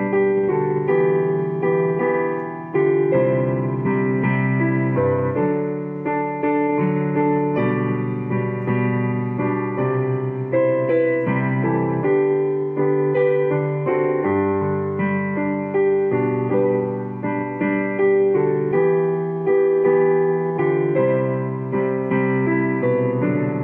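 A hymn tune played on piano or electric keyboard, a melody over held chords that change about once a second.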